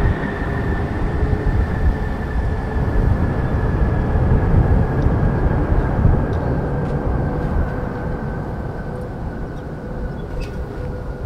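Twin-engine widebody jet airliner rolling out down the runway just after touchdown: a steady, deep jet-engine roar with a thin whine that slowly falls in pitch as the aircraft slows, the roar easing off over the last few seconds.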